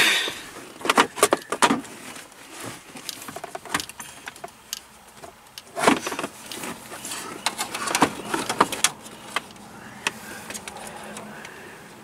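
Irregular clicks, clinks and knocks of a screwdriver and other hand tools being handled against the truck's plastic dashboard trim. The sharp taps are scattered unevenly, with a loose cluster about a second in and single knocks around four, six and eight seconds.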